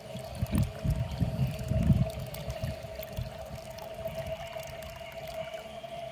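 Garden hose running water into a nearly full five-gallon plastic bucket, a steady pouring splash, with a steady hum underneath. A few low bumps in the first two seconds.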